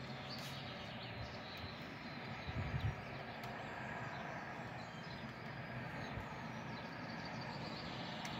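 Outdoor town background: a steady hum of distant traffic with faint birdsong, and a couple of brief low thumps about two and a half seconds in.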